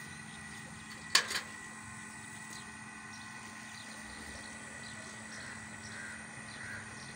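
A steel milk bucket set down on the ground, giving a sharp double clank about a second in, over a steady background hum and hiss.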